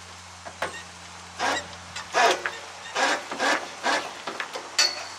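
A run of short, irregular scrapes and rubs from hands working on the metal mast fittings, over a steady low hum.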